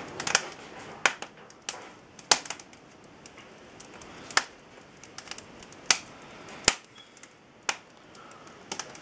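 Beech-wood fire crackling, with sharp irregular pops about once a second over a low hiss.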